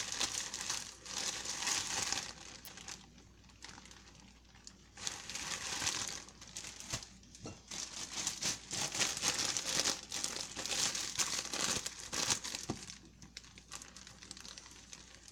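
A plastic bread bag crinkling and rustling in several bursts as slices of bread are taken out, with short quieter pauses between.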